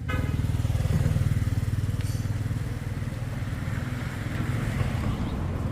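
Small motorcycle engine running steadily, a low rumble.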